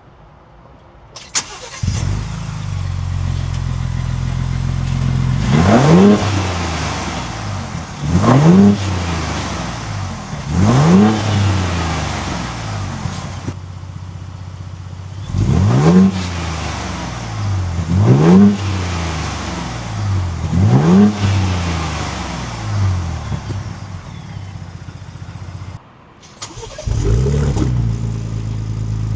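Ford Bronco Raptor's 3.0-litre twin-turbo V6 exhaust: the engine starts about a second in and settles into a steady idle, then is revved in three short blips, a pause, and three more blips. Near the end the sound cuts out briefly and an engine starts and idles again.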